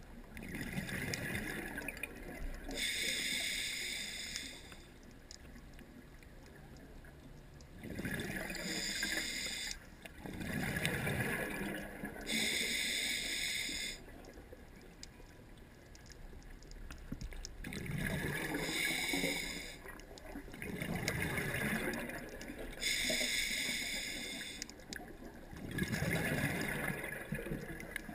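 Scuba diver breathing through a regulator: a hissing inhale alternating with a bubbling, rumbling exhale, repeated every few seconds.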